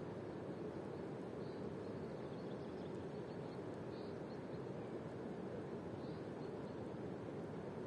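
Steady rushing outdoor ambience, with faint high chirps about every two seconds.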